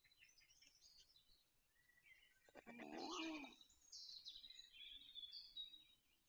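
Faint chorus of small forest songbirds, with high chirps and trills all through. A brief lower-pitched call about two and a half seconds in is the loudest sound.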